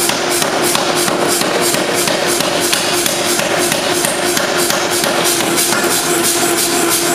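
Nazel 3B air power hammer striking a hot stainless steel billet with rapid, even blows, about four a second. Over the blows runs a steady whistling squeak, which the owner puts down to the valve timing being set a bit off.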